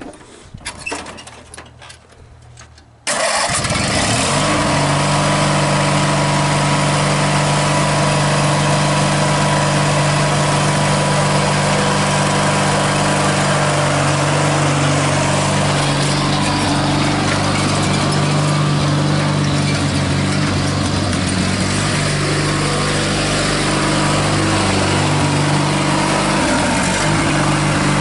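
Riding lawn mower's engine starting up about three seconds in, after a few faint clicks, then running loud and steady at a nearly constant speed.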